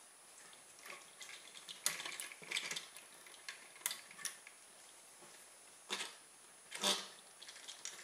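Light clicks, taps and small knocks of hands handling a homemade toy car's plastic-tube chassis and pulleys while refitting a slipped rubber-band drive belt. The clicks come irregularly, with the loudest knock near the end.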